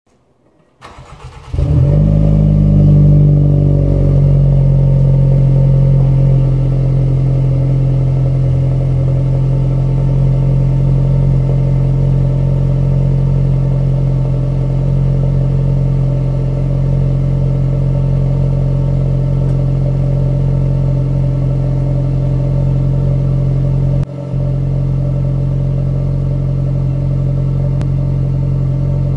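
Jaguar XE 25t's 2.0-litre turbocharged four-cylinder petrol engine with a custom exhaust, cold-started and heard at the tailpipe: a second of cranking, a flare of revs, then a steady idle. The sound drops briefly about 24 seconds in.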